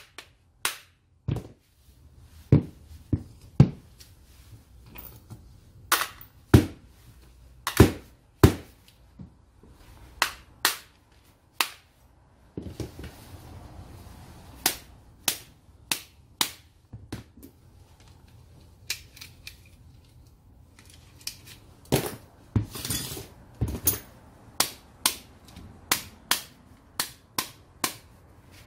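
A hammer and a rubber mallet knocking on the red motor housing of a Keyang ACT-100SN angle grinder to drive out its motor parts during disassembly. The knocks are sharp and come irregularly, some in quick pairs, with brief rustling of parts being handled in between.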